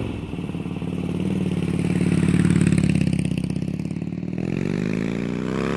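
Motorcycle engine revving: it swells to its loudest about two and a half seconds in, eases off, then the pitch climbs again near the end.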